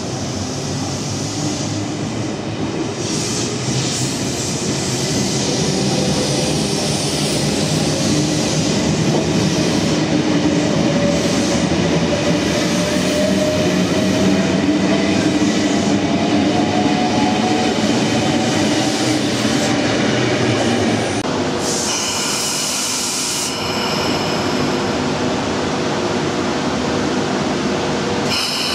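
Sydney Trains double-deck electric train running past along the platform, its wheels rumbling on the rails while the motor whine slowly rises in pitch as it gathers speed. A high-pitched wheel squeal cuts in about two-thirds of the way through and again near the end.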